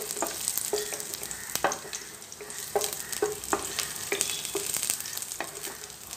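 Crushed garlic cloves, skins on, sizzling in hot oil in a steel pot, with a steady hiss throughout. A wooden spatula stirring them knocks and scrapes against the pot repeatedly, every half second or so.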